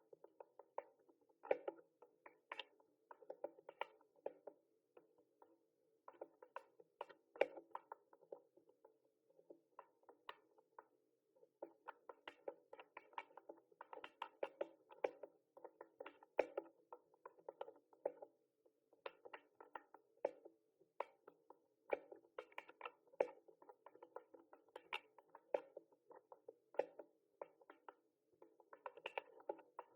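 Typing on a mechanical keyboard: a quiet, irregular run of key clicks, several a second, with short pauses between bursts.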